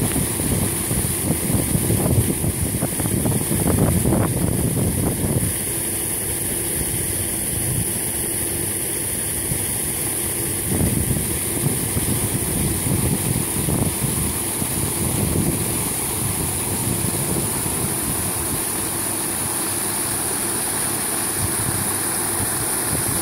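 Linn 1.1 kW paddlewheel pond aerator running: its paddles churn and throw water in a steady, loud rushing splash, with a faint steady hum underneath.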